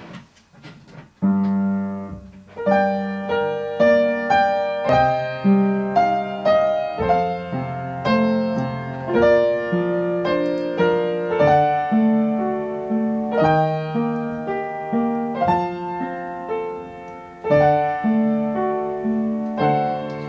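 Upright piano played with both hands, a melody over chords, starting about a second in.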